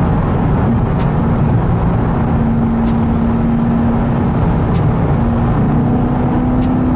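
Chevrolet Corvette cruising at a steady speed, heard from inside the cabin: a steady engine drone over road and tyre noise.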